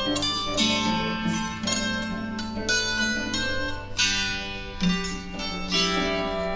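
Small wooden harp plucked in a slow melody, single notes and chords starting every half-second or so and ringing on. The audio is the harp's part as pulled out of a mixed recording by a source-separation model.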